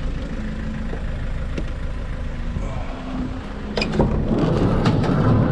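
A motor vehicle engine idling steadily, with a few light clicks, and a louder rumbling noise building up from about four seconds in.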